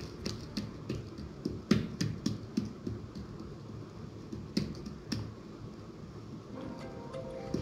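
Palms pressing and patting a ball of oiled roti canai dough flat on a wooden board: irregular soft taps and slaps, the loudest about two seconds in.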